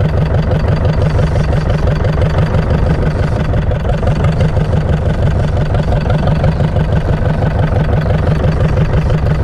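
Fishing boat's diesel engine running steadily, a loud, even rapid-pulsing low rumble.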